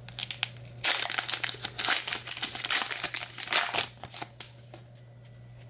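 Wrapper of a baseball card pack being torn open and crinkled. A dense run of crackling starts about a second in and dies down after about four seconds, leaving quieter handling.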